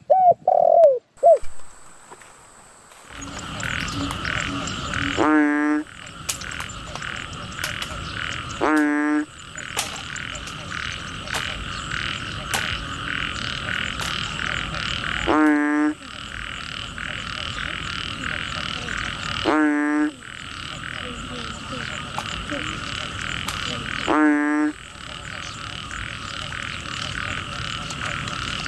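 Frogs calling: a steady, fast-pulsing chorus, with a louder croaking call five times, about every four to five seconds. A few short, loud sounds with sliding pitch come in the first second and a half, before the chorus starts.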